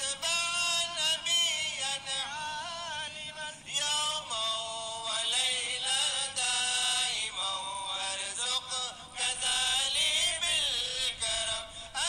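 A solo voice singing a naat, an Islamic devotional song in praise of the Prophet, in long, winding held phrases with no beat.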